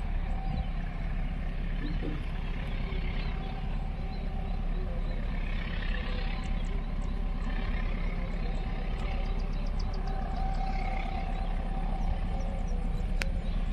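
Wind rumbling on the microphone in open country, with a faint steady hum and scattered short, high chirps. There is a single sharp click near the end.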